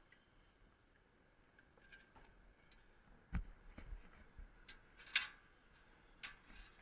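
Scattered light metal clicks and knocks from hands and gear touching the steel ladder and railings of a tower crane. The loudest are a dull knock about three and a half seconds in and a sharper click just past five seconds.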